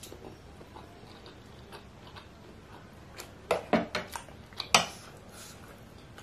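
Metal cutlery clinking against a plate of meatballs, a handful of sharp clinks bunched a little past the middle, the loudest near the end of the bunch, with only faint handling noise between.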